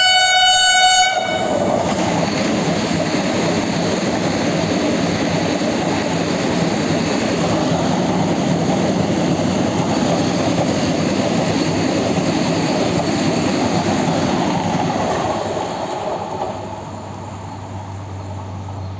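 Vande Bharat Express electric trainset sounding its horn, which stops about a second in, then the loud, steady rush of its wheels and coaches as it passes at speed along the platform. The noise fades near the end as the train goes by.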